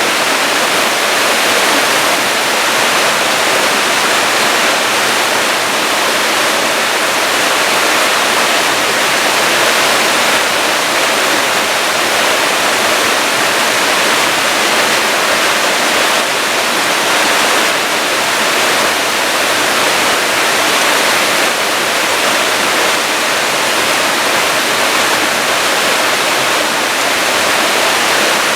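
Loud, steady rush of water pouring down a waterfall, an even unbroken roar with no let-up.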